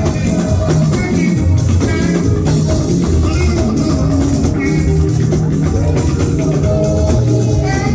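Band music with drum kit, bass and guitar playing a steady beat.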